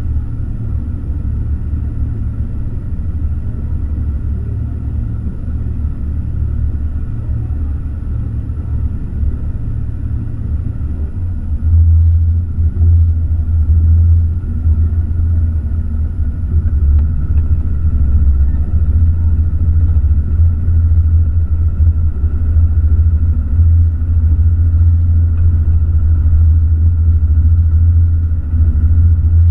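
Motor boat's engine running at low harbour speed, a steady low rumble that grows louder about twelve seconds in.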